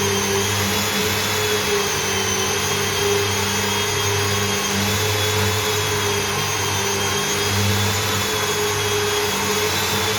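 An electric motor running steadily under load, a continuous whine over a rushing noise with no change in speed.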